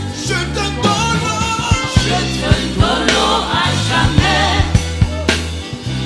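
Live gospel worship band playing, with a man singing lead over backing singers, a steady bass line and regular drum hits.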